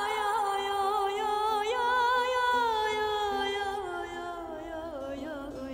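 A solo voice singing one long, ornamented Kurdish-style phrase with quick wavering turns, the melody sliding downward near the end, over a steady low drone.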